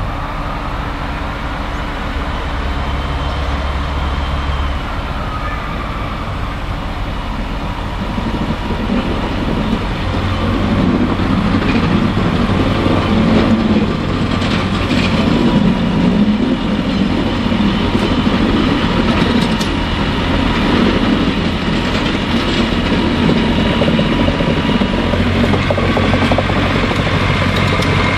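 Class 143 Pacer two-car diesel railbus, its underfloor Cummins diesel engines running, then growing louder about eight seconds in as the unit pulls away and rolls slowly past. Under the engine run the clicks and faint squeal of its wheels on the track.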